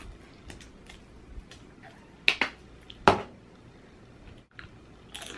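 A few short, sharp snaps and crackles, the loudest three between about two and three seconds in, as sour cream is squeezed over a foil tray of Dorito and Hot Cheeto nachos and the chips are handled.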